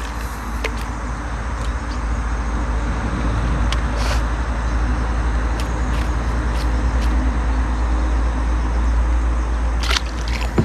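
Steady deep rumble with an even hiss over it, growing slightly louder, with a few brief faint clicks; it cuts off abruptly at the end.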